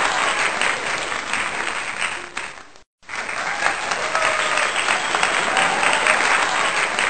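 Crowd applauding steadily, as a dense clatter of many hands. It fades and cuts out abruptly just before three seconds in, then starts again at full level.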